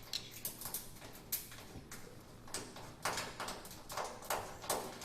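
Scattered light clicks, taps and clinks in irregular clusters from parts and tools being handled on a commercial washing machine that is opened up for repair.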